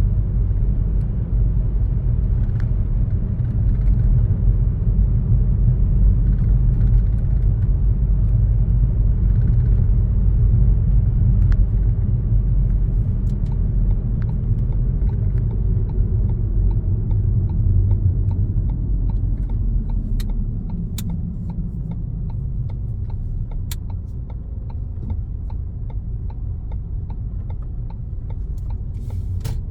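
A car driving along a road: a steady low rumble of engine and road noise, which eases off about two-thirds of the way through as the car slows.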